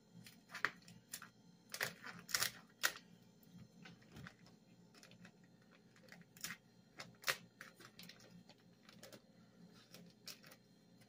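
Plastic wrapping on a whole duck being cut open with scissors: quiet, irregular crinkles and sharp clicks, a few louder snips scattered through.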